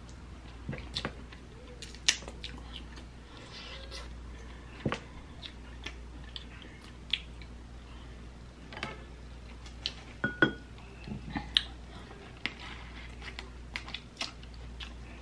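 Close-miked eating of a seafood boil crab leg: chewing and mouth sounds broken by scattered sharp clicks and cracks, several louder ones grouped near the middle.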